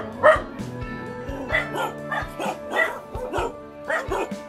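A dog barking over and over in a quick series, about two to three barks a second, over background music.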